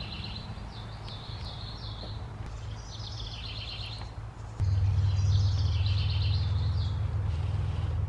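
Songbirds chirping and trilling in short repeated phrases over a low, steady mechanical hum. The hum gets clearly louder a little past halfway.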